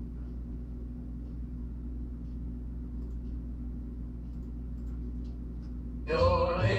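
Steady low room hum with a few faint ticks, then a recorded song with singing starts suddenly near the end.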